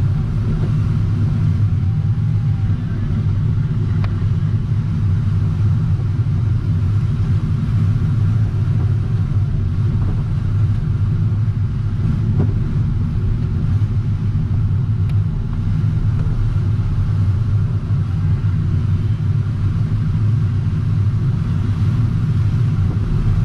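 Steady, loud low rumble of airflow rushing around the closed canopy of an LS-4 sailplane in flight, heard from inside the cockpit. A faint tone glides up and down twice, once near the start and again about two-thirds of the way through.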